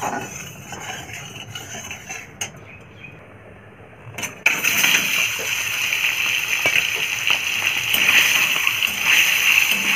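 Hot oil in a metal kadai starts sizzling and spattering suddenly about four and a half seconds in, as turmeric-and-salt-rubbed boiled eggs are tipped in to fry, and keeps up a loud steady hiss. Before that, a few quieter clinks of a metal spatula and bowl against the pan.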